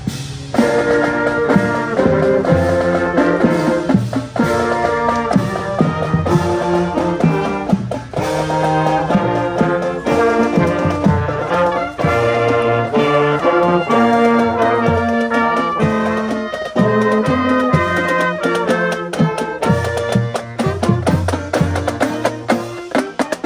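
Brass band music, with several sustained brass notes playing together and changing about every second.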